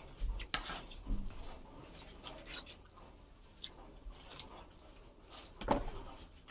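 Close-up eating sounds: chewing with scattered short clicks and smacks, the loudest a little before the end.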